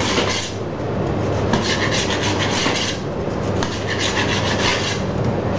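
Rasping strokes of a long knife sawing through sponge cake, coming in spells of about a second, over a steady low hum.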